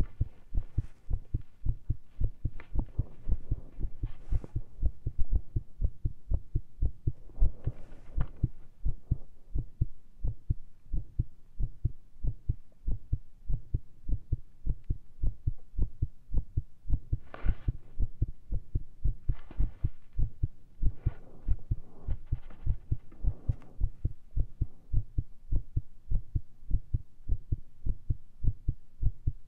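A human heartbeat heard close up through a stethoscope with a lavalier mic: fast, irregular low thumps after a large dose of caffeine, at rest. A few brief rustling noises come and go over the beats.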